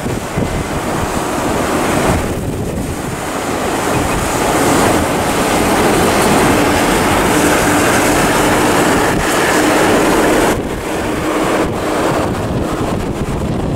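Wind rushing over the microphone together with road noise from a car moving at highway speed beside a heavy truck. The rush builds from about four seconds in and eases near the end.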